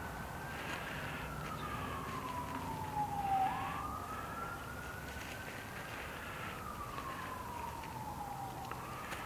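Emergency vehicle siren in wail mode, one tone sliding slowly down in pitch, turning sharply upward about three and a half seconds in, rising, then falling slowly again.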